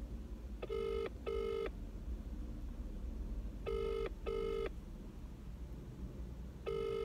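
Phone ringback tone of an outgoing call waiting to be answered, in the British double-ring pattern: a pair of short steady rings every three seconds, twice in full and a third starting near the end.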